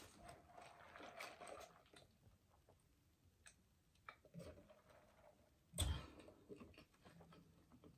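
Mostly quiet, with faint mouth clicks and small handling noises while she drinks from a paper cup, then one louder knock about six seconds in as the cup is set back down on the table.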